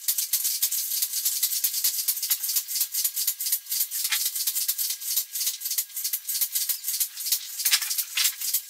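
Fast, dry rattling clicks from the hand-cranked barring gear as the pinion turns the flywheel of the 1895 Worth-McKenzie triple expansion steam engine slowly round, with a couple of louder rasps near the end.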